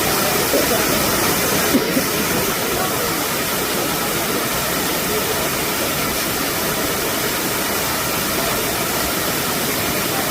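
Waterfall pouring: a loud, steady rush of water, with a brief click about two seconds in.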